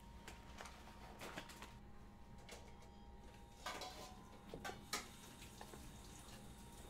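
Faint scattered taps and clicks of a clear plastic cake cover being lowered and fitted over a cardboard box base, the loudest taps a little past the middle, over a steady faint hum.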